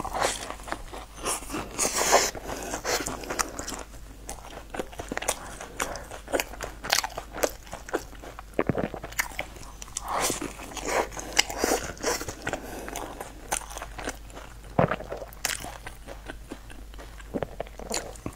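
Close-miked biting and chewing of baked cheese-and-corn-topped bread: a steady, irregular run of crunchy bites and many sharp crackles.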